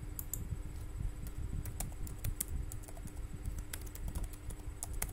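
Typing on a computer keyboard: irregular keystroke clicks coming in short runs, over a faint steady hum.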